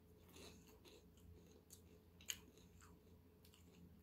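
Faint chewing of a bite of peach mango pie: soft crisp clicks from the mouth, one sharper crunch a little over two seconds in.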